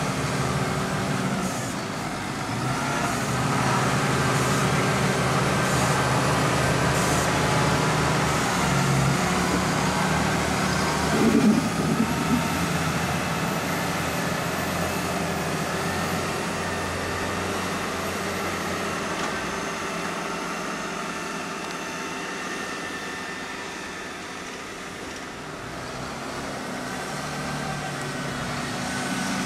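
Valtra tractor engines working under load as buck-rake tractors push and roll grass on a silage clamp, the engine note rising and falling as they climb and reverse. A brief louder sound comes about eleven seconds in.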